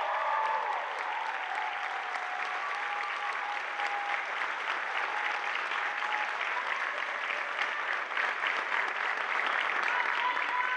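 Theatre audience applauding steadily, with a few faint voices calling out.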